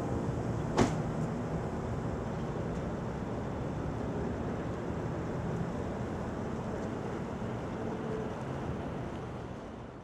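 Steady street traffic rumble with a single sharp click about a second in; the sound fades out at the end.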